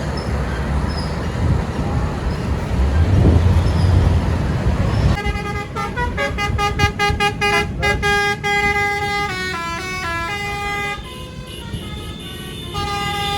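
Roadside traffic rumble, then about five seconds in a bus's multi-trumpet 'telolet' horn starts playing a melody: several pitched notes sounding together, stepping up and down in pitch every half second or so.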